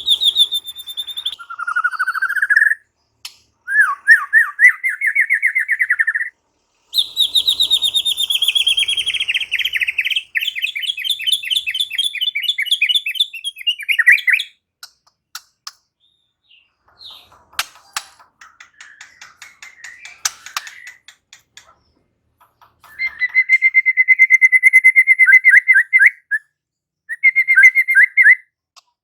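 White-rumped shama singing: loud whistled phrases and fast trills for the first half, a quieter stretch with scattered clicks in the middle, then a fast, even trill repeated twice near the end.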